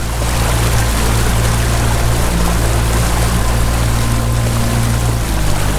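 Bass boat's outboard motor running steadily at speed, a steady low hum under a loud rush of wind and water.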